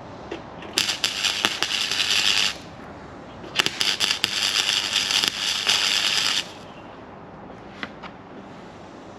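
Welder filling a rust hole in a steel sill: two bursts of arc crackle, the first about a second and a half long and the second about three seconds, with a short pause between.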